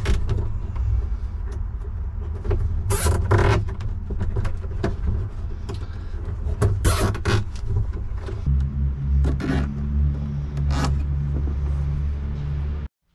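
Nylon zip ties being pulled tight through holes in a plastic garbage can, a few short zipping ratchets, over a steady low rumble that gets heavier about two-thirds through.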